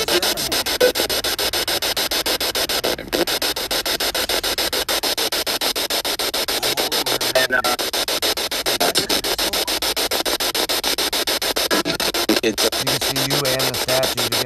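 Spirit box sweeping through radio frequencies: dense static chopped at a rapid, even rate, with brief voice-like fragments that the investigators take for spirit voices (EVPs), such as "hey now".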